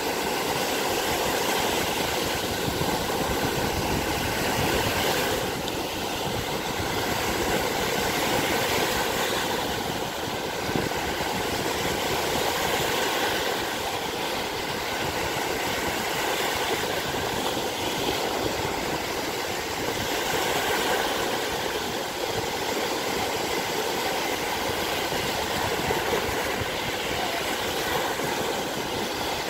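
Lake Michigan surf: small waves breaking and washing up onto a sandy shore, a steady rushing noise that swells and eases as each wave comes in.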